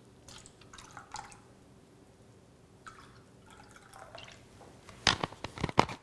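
Soda poured from a plastic bottle into a cup, a faint short trickle and splash early on. About five seconds in, a quick run of sharp plastic clicks and knocks as the bottle is handled and its cap screwed on, the loudest sounds here.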